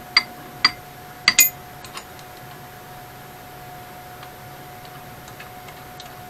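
A wrench clinking against metal hardware while bolts are fastened: four sharp metallic clicks in the first second and a half, then a few faint ticks. A steady faint hum runs underneath.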